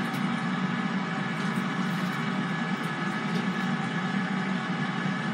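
Power XL air fryer running with a steady whir from its fan and heater, unchanging in level and carrying a few faint steady tones.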